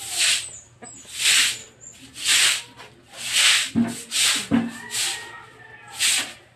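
Long-handled broom sweeping water across a wet concrete floor: about seven brisk swishing strokes, roughly one a second. Two short low knocks come about four seconds in.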